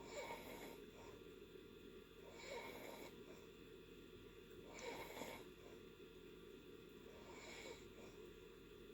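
A person snoring faintly in deep sleep: soft, breathy snores about every two and a half seconds, four in all.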